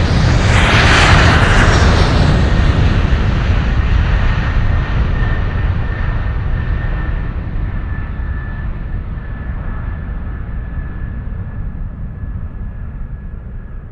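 A loud rushing roar that peaks about a second in and then slowly fades away, its higher hiss dying first, with a faint steady whine showing through as it recedes.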